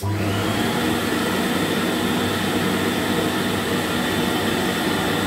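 1991 Electrolux Z1070 Turbo2 Super upright vacuum cleaner switched on and running. It starts abruptly, a whine climbs in pitch for a fraction of a second as the motor spins up, then it runs steadily with a hum and an airy rush. It is freshly fitted with a new dust bag and a new belt.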